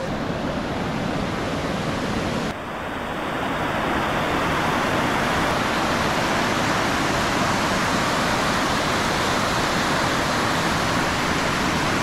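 Waterfall rushing steadily, running high with water after heavy rain. About two and a half seconds in the sound changes abruptly, and the rushing then grows louder and holds steady.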